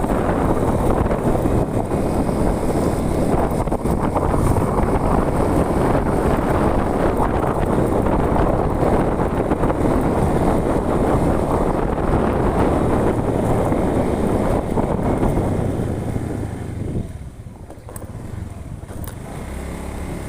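Vehicle travelling along a road, with wind rushing over the microphone as a loud, steady rumble. It drops away sharply for a couple of seconds near the end, then partly returns.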